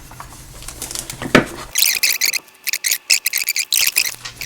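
Handling noise from the deadbolt's parts: a single click about a second and a half in, then about two seconds of rapid scraping and rustling in a string of short bursts.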